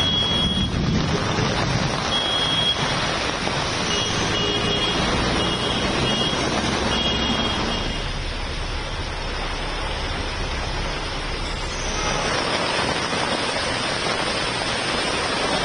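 Road traffic in heavy rain on a waterlogged street: vehicles running under a steady wash of rain and water noise, with a few short high beeps in the first half. The sound changes abruptly about eight and again about twelve seconds in.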